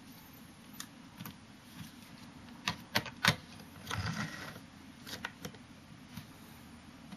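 Metal-on-metal handling of a Hasselblad 1000F body as its 45-degree prism viewfinder is fitted on: three sharp clicks about three seconds in, then a short sliding scrape as the finder goes onto the body, then a few lighter clicks as it seats.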